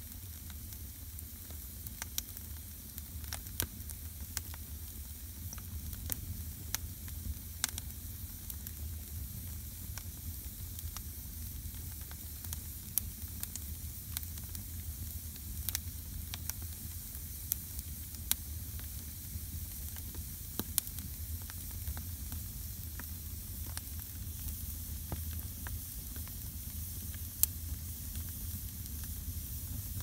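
Split firewood burning in an open wood stove firebox: a steady hiss broken by irregular sharp crackles and pops, one louder pop near the end, over a steady low rumble.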